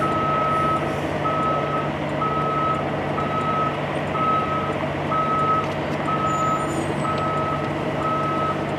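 A vehicle's reversing alarm beeping steadily, about one beep a second, over the steady hum of an idling engine.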